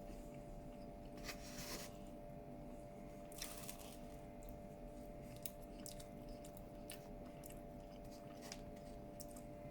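Faint chewing and crunching of crispy shredded chicken, with a few short crunches, the clearest about a second and a half and three and a half seconds in, over a steady faint hum.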